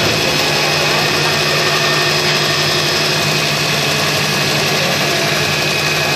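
Belt-driven machine spinning a motor armature, running steadily with a loud low hum and a thin high whine over it.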